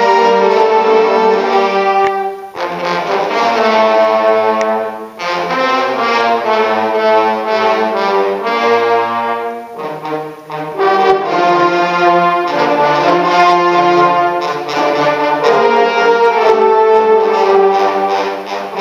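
A large trombone ensemble playing loud, sustained chords in several parts, with short breaks between phrases about 2.5, 5 and 10 seconds in.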